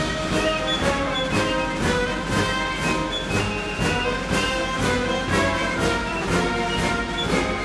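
Orchestral music with a steady beat, about two strikes a second.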